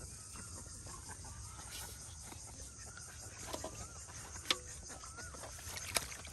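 Outdoor ambience of insects with repeated short chirping calls, and two sharp clicks about four and a half and six seconds in.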